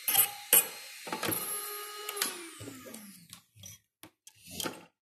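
Electric nail drill whining briefly and then switched off, its pitch falling as it spins down, after a couple of sharp clicks of handling at the start. Faint clicks and rustles follow.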